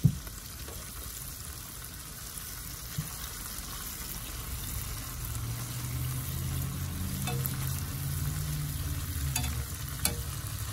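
Flour-coated freshwater prawns frying in a pan of hot oil with a steady sizzle. A few sharp clicks come near the end as metal tongs touch the pan.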